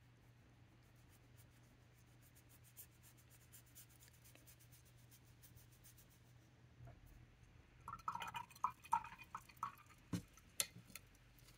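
Faint scratch of a paintbrush stroking ink across a paper swatch card, then, about eight seconds in, a quick run of clinks and splashes as the brush is swished in a glass jar of rinse water, with a few sharp taps near the end.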